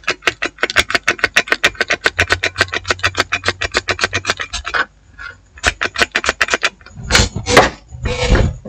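A stiff brush scrubbing a water-damaged phone's circuit board in quick back-and-forth strokes, about nine a second, stopping about five seconds in. A few louder knocks and rubs follow near the end as the board is handled.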